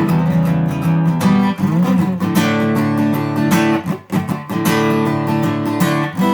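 Acoustic guitar strumming chords, with a brief break about four seconds in.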